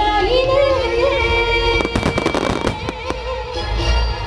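Fireworks shells bursting overhead in a run of sharp bangs and crackles, with a melody playing through loudspeakers underneath during the first half; a heavy low boom comes near the end.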